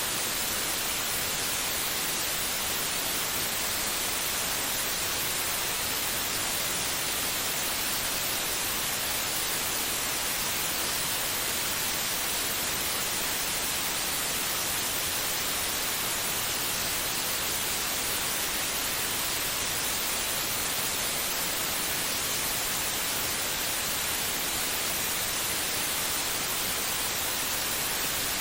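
Steady white noise: an even, bright hiss that never changes, with no rhythm or beat.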